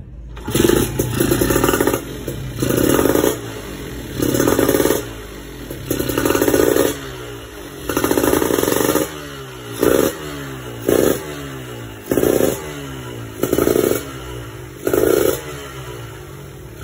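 Two-stroke motorcycle engine blipped by hand on the throttle about ten times, each rev rising and dropping back to idle, the blips growing shorter after the first few. It is running with its grounding kit removed, for a before-and-after comparison.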